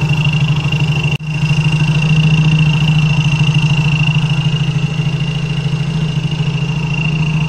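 Yamaha Mio scooter's single-cylinder four-stroke engine idling, with a toy plastic whistle pushed into the engine's breather hose. The breather air keeps the whistle sounding one steady high note over the pulsing idle, like a cricket. It does not get any louder.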